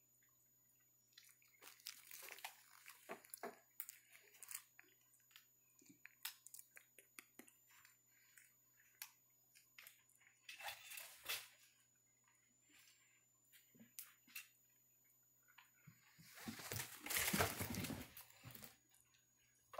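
Faint scattered clicks, crunches and rustles from pet macaques moving about close to the phone, with a louder stretch of rustling and scuffling a little before the end.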